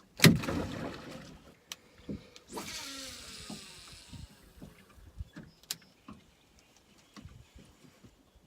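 Fishing rod and reel being cast and worked: a sharp knock near the start, then a hiss of line running off the reel with a falling whir about two and a half seconds in, followed by scattered light clicks and knocks.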